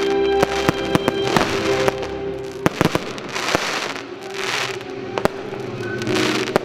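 Fireworks display: a string of sharp bangs and cracks from shells bursting, with rushes of hiss and crackle from fountains and bursting stars. Music plays underneath with steady held tones.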